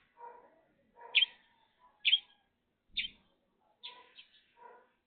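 Pet bird giving short, sharp high-pitched calls about once a second, with softer, lower-pitched sounds in between.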